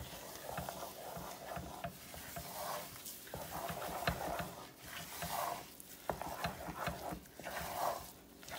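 Wooden spoon stirring rolled oats into a thick chocolate and peanut butter mixture in a heavy-bottomed saucepan: a run of uneven stirring strokes with small clicks of the spoon against the pan.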